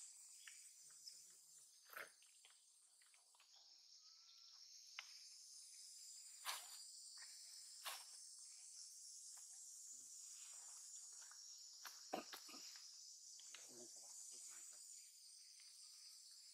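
Faint, steady high-pitched insect chorus, with a handful of short clicks and rustles scattered through.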